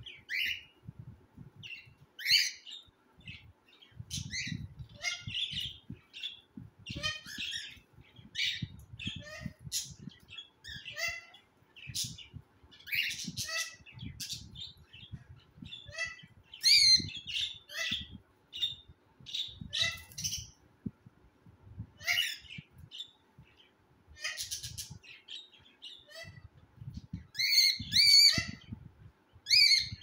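Cockatiel chicks calling: a steady run of short chirps and squawks, a few of them markedly louder, with a faint low muffled noise underneath.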